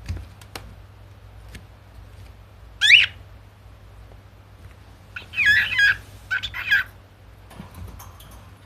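Cockatiel calling: one short, high, gliding call about three seconds in, then a run of warbling, chattering calls about two seconds later.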